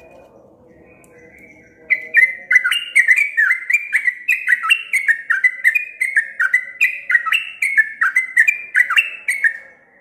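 Caged yellow-vented bulbul in full song: a long, rapid run of short, sweeping whistled notes, about three or four a second. It starts about two seconds in and breaks off just before the end.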